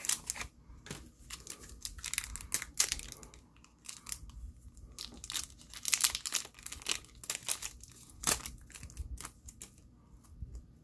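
Wrapper of a Bakugan trading-card booster pack being torn open and crinkled by hand, with irregular crackles and short pauses.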